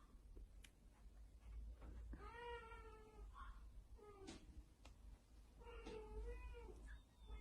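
Kitten meowing faintly: two drawn-out meows about three seconds apart, each rising and falling in pitch, with a few short calls and light clicks between.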